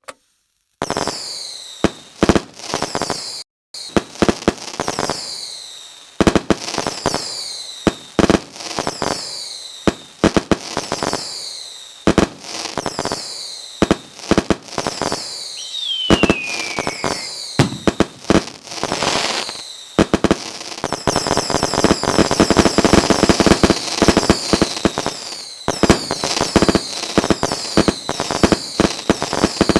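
Fireworks going off: a fast run of sharp bangs and pops with crackling, starting about a second in. A falling whistle comes about halfway through, and a dense stretch of crackle follows about two-thirds of the way through.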